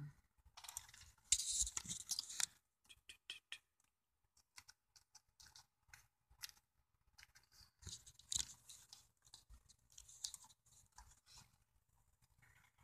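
Irregular light clicks and short scratchy rustles, close to the microphone: handling noise, with the rustling strongest about a second in and again around eight seconds.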